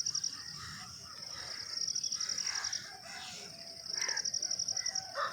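A rooster crowing, over a steady high pulsing trill of insects chirping.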